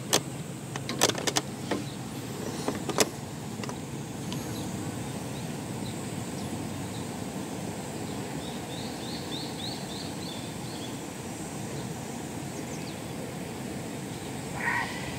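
Steady wind noise blowing on the microphone. A few sharp clicks sound in the first three seconds, and a short run of about seven quick high chirps comes about nine seconds in.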